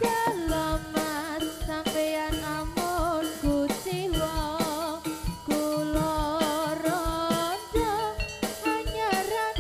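Live Javanese jaranan music from a gamelan ensemble over a sound system: regular drum strokes under a melodic line of held notes that slide from pitch to pitch.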